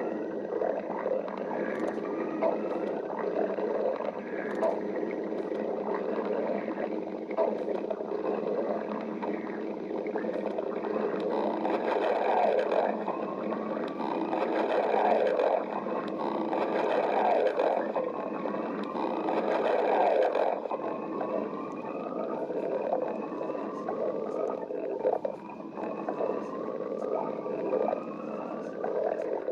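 Stomach growling: a continuous gurgling rumble with many short rising squeaky glides, loudest in the middle stretch.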